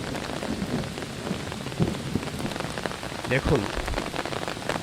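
Rain falling steadily on the ground and standing floodwater, an even hiss with many small drop ticks.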